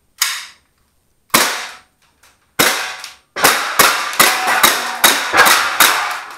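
Airsoft pistol firing about ten shots at aluminum target plates, with BBs clanging off the plates. There are three spaced shots first, then a quick even string of about seven, around two and a half a second, each with a short ring.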